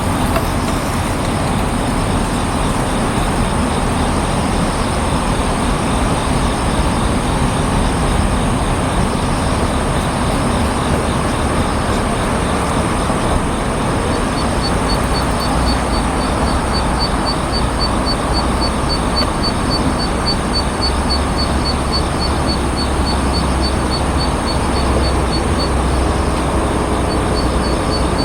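Steady, loud rushing background noise. About halfway through, a fast, even series of high pips starts and runs for roughly ten seconds.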